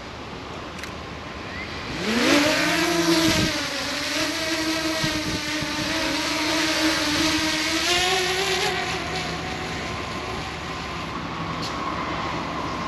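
Diesel locomotive air horn sounding one long blast of about six and a half seconds, sliding up in pitch as it comes on and then holding steady, over a faint low diesel hum.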